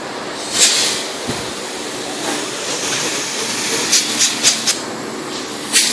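Compressed-air paint spray gun hissing as it sprays paint, with several short, louder bursts of air as the trigger is pulled, three close together about four seconds in.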